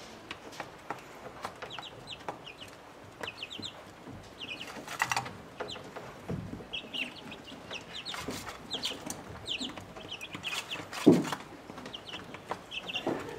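Young chicks and ducklings peeping in a brooder: many short, high, falling peeps in quick succession, with a few light knocks and a single dull thump about eleven seconds in.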